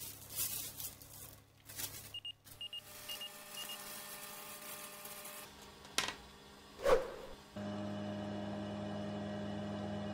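Plastic sheet rustling, then an oven's control panel beeping several times in quick pairs. A sharp click and a thump follow, and then the oven runs with a steady hum.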